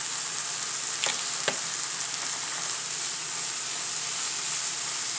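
Diced chicken and bell peppers sizzling steadily in melting butter in a nonstick frying pan while being stirred with a slotted spatula, with two light knocks about a second in.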